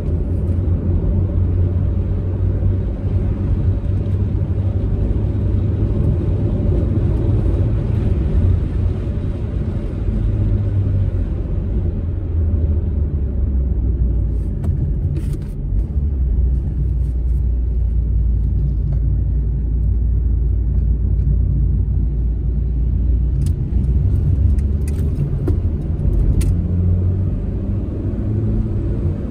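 Proton Saga car being driven, a steady low drone of engine and road noise; about twelve seconds in the engine note drops lower. A few short clicks come through in the second half.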